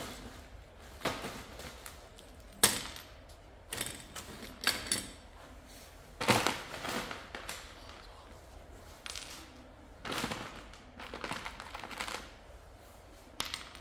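Small hard parts clicking and clattering as they are picked out of a plastic tub and set down on a workbench, in irregular sharp knocks a second or so apart.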